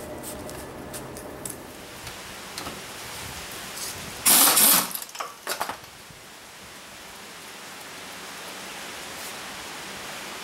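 Work noise around a truck's front suspension: a few light clicks and knocks over a steady hiss, with one loud half-second scraping clatter about four seconds in.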